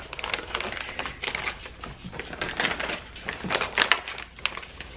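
Stiff plastic treat bag crinkling and its zip seal clicking as it is pressed shut, mixed with dogs crunching on pumpkin teething-ring chews: an irregular run of sharp clicks and crackles.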